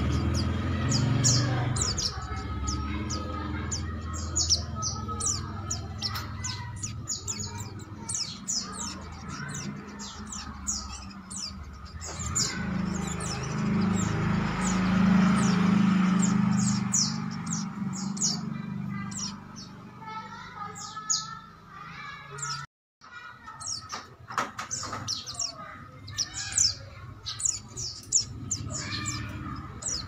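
Caged white-eyes chirping: many short, high chirps and twitters in quick succession, over a low background rumble. The sound cuts out completely for a moment about two-thirds of the way through.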